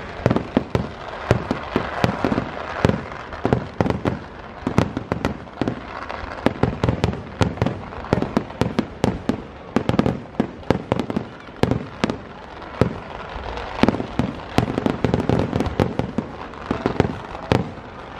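Kerala temple-festival fireworks (vedikettu): a continuous barrage of sharp bangs and crackles from aerial shells bursting overhead, several bangs a second without a break.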